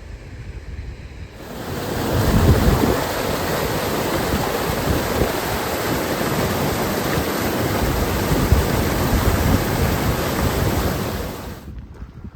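Loud, steady rush of water, like a waterfall or fast stream close by. It cuts in about a second and a half in and cuts off abruptly near the end.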